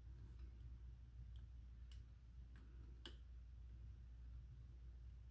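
A handful of faint, sharp clicks of small metal carburetor parts being handled, the clearest about two and three seconds in, over a low steady hum.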